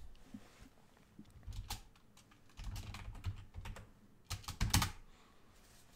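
Typing on a computer keyboard: three short bursts of keystrokes with pauses between, the last burst, about three-quarters of the way through, the loudest.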